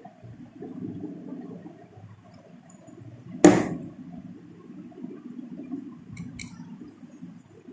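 Handling noise from working on a car instrument cluster, with one sharp knock about three and a half seconds in and two light clicks near the end.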